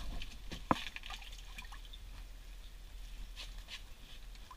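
Light dripping water and small scattered clicks from a perch and jigging tackle being handled over an ice-fishing hole, with one sharper click a little under a second in.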